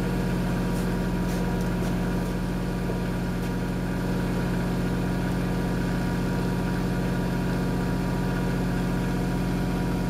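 Heavy diesel truck engine idling steadily, an even unchanging hum.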